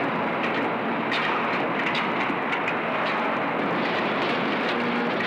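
Car assembly-plant din: steady machinery noise with scattered sharp metallic clanks and clicks from the work on the line.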